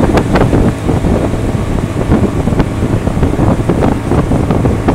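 Speedboat under way at speed: wind buffeting the microphone over the boat's engine and rushing water, with irregular knocks from the hull.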